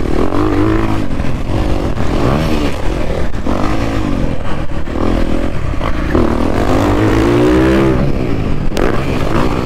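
Dirt bike engine being ridden hard on a motocross track, revving up and easing off again and again as the rider accelerates out of turns and over the track.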